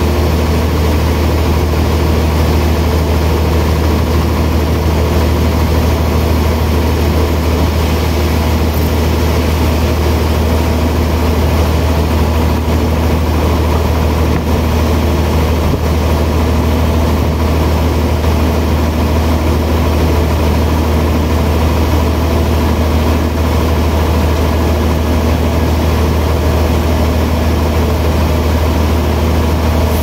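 Large sawmill band saw running with a steady low hum that does not change, while a wide wooden slab is sawn on the carriage.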